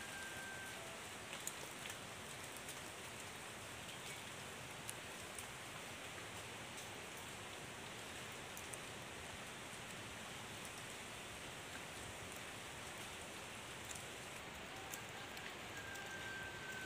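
Steady, even hiss of outdoor background noise with a few faint clicks scattered through it, and a thin, high steady tone briefly near the start and again near the end.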